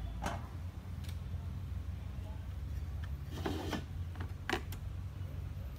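A few clinks and knocks of metal cookware and utensils being handled: a metal pot lid set down and utensils picked up, with the sharpest clicks about four and a half seconds in, over a steady low rumble.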